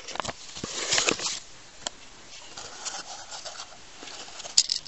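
Paper and cardboard handling: a rustle about a second in and scattered light taps and clicks as a paper catalogue is moved and a small cardboard toy box is picked up.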